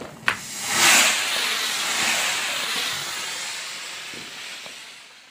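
Two sharp pops, then a burning Diwali firework hissing loudly as it sprays sparks; the hiss peaks about a second in and slowly fades away.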